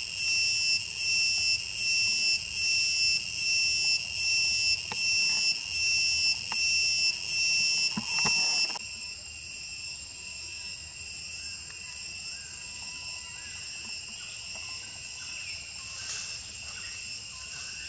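Loud, high-pitched insect chorus pulsing about once a second, stopping abruptly about nine seconds in; a quieter steady insect drone carries on after it, with a few short chirps.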